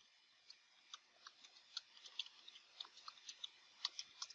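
Faint computer keyboard typing: irregular, quick key clicks, a few a second, as a terminal command is typed in.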